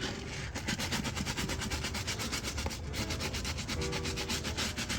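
Rapid back-and-forth scrubbing of a window air conditioner's filter while it is washed with dish soap and water, about eight strokes a second.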